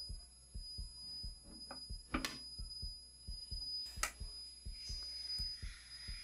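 Crosley record player being handled: two sharp clicks as the tonearm is moved, then a rising hiss near the end as the stylus meets the record. Under it runs a low, regular thump about three times a second and a steady high whine.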